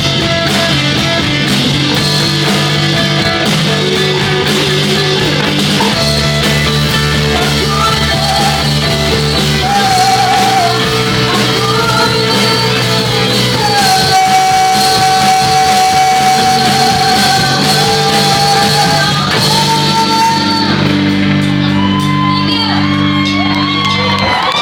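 Live rock band playing with drums and guitars, and a woman singing lead. She holds one long note near the middle.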